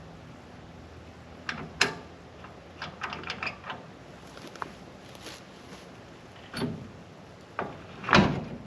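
Irregular metallic clanks and clicks from a trailer coupler and hitch being worked onto the truck's hitch ball, the loudest knock near the end.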